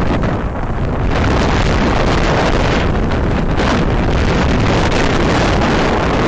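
Wind rushing over and buffeting the microphone of a camera carried downhill on skis, a loud steady noise that grows a little louder about a second in.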